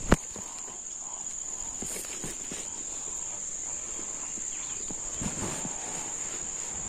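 Steady high-pitched insect drone, with the soft scuff of footsteps on a dirt and gravel path and one sharp knock just after the start.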